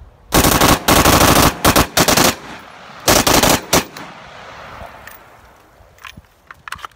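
AR-15 rifle with a Fostech Echo binary trigger firing rapid strings of shots, one on each pull and one on each release of the trigger. A long run of fast shots comes first, then a shorter run after a brief pause, with the reports trailing off in echo. A few light clicks follow near the end.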